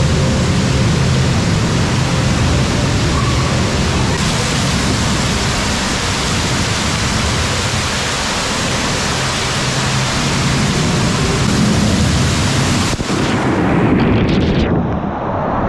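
Cave waterfalls pouring and splashing onto a waterproof action camera riding an inner tube down a lazy river: a loud, steady rush of water. Near the end the sound turns muffled as water covers the camera's microphone.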